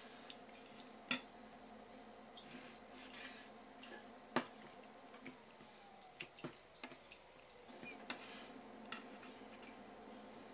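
Kitchen knife tapping on a wooden cutting board while slicing blanched pufferfish skin, with soft wet handling of the slippery skin. There are two sharp knocks, about a second in and about four seconds in, and a cluster of small ticks a little later, over a faint steady hum.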